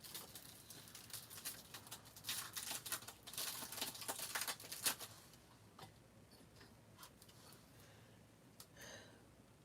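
Rustling and crinkling of packaging as sticker sheets are handled and unwrapped, busiest in the first five seconds, then thinning to a few light clicks and taps.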